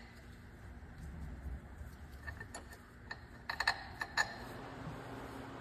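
A few light metallic clicks and taps from tools and parts being handled while the differential cover is fitted, most of them in a quick cluster about three and a half seconds in, over a faint steady hum.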